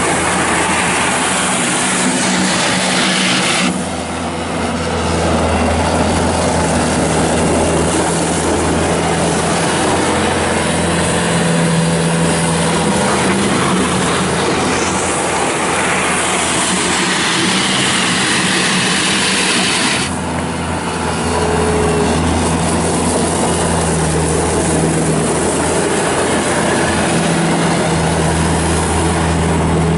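2007 Bobcat S330 skid steer loader's diesel engine running steadily as the machine is worked. The drone dips briefly about four seconds in and again about twenty seconds in, then picks back up.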